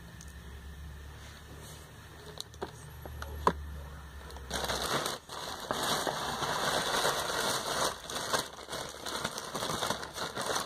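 Plastic wrapping crinkling and rustling as it is handled, starting about halfway through and running on, after a few light clicks and taps in a low hum.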